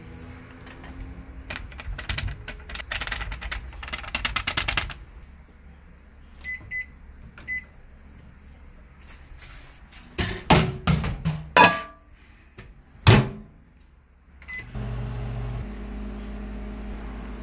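Rustling and scratching as a food cup is handled, then three short beeps from the keypad of a Panasonic inverter microwave being set. Several knocks and a sharp thud follow, then a beep as the microwave starts and a steady low hum as it runs.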